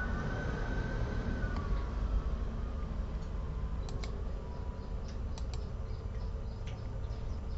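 Computer mouse clicks: two quick double clicks, about four and five and a half seconds in, with a few fainter ticks after, over a steady low background rumble.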